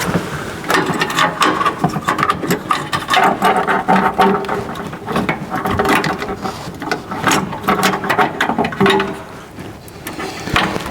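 Clicking and rattling of parts being handled while a wiring harness is worked through a car door: many quick, irregular clicks.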